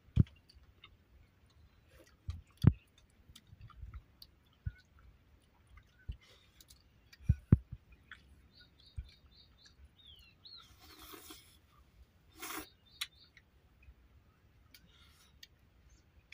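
Eating by hand from steel plates: fingers mixing and scooping rice, chewing, and sharp clicks and knocks of hands and steel dishes. A bird chirps a few times about eight seconds in. There are two short bursts of hiss a few seconds later.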